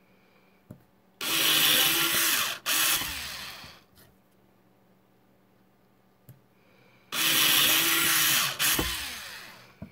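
Cordless drill widening pilot holes in a lawnmower wheel's hub, in two runs of about two and a half seconds each. Each run stops briefly, then starts again and dies away as the motor winds down.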